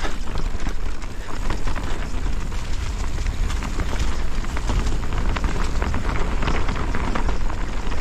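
Specialized Kenevo electric mountain bike rolling downhill over a rough dirt trail: tyre noise on dirt and stones with many small clatters and rattles from the bike, over a steady low rumble.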